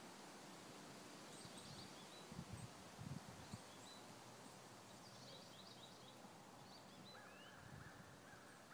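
Quiet outdoor ambience with small birds chirping faintly, and a steady repeated chirp starting about seven seconds in. A few soft low thumps come between about two and three and a half seconds in.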